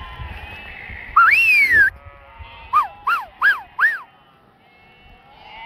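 A flock of sheep and lambs bleating, with wind buffeting the microphone in the first two seconds. About a second in comes a loud rising-then-falling whistle, then four short whistles in quick succession.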